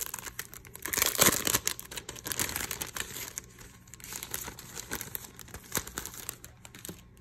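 Clear plastic cellophane sleeve crinkling as a book is pulled out of it. It is loudest about a second in and dies down near the end.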